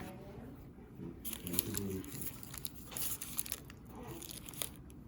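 Crinkling and crunching with scattered light clicks as food is handled and prepared.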